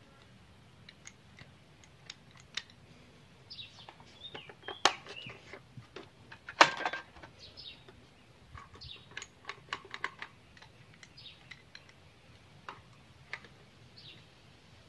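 Scattered light clicks and taps of hands working the throttle linkage and carburetor parts on a Husqvarna 372XP chainsaw, two louder knocks about five and six and a half seconds in; the engine is not running. Birds chirp in the background.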